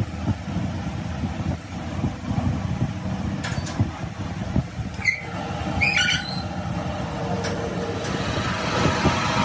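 Flywheel resurfacing machine running with a truck flywheel turning on it: an uneven low machine drone, a few short metallic clinks about midway, and a steadier higher hum building over the last couple of seconds.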